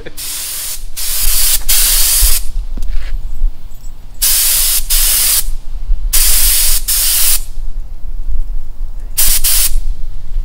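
Air-driven gravity-feed paint spray gun hissing in a series of short trigger pulls, each about half a second to a second long with pauses between, as paint is sprayed onto a test piece of cardboard.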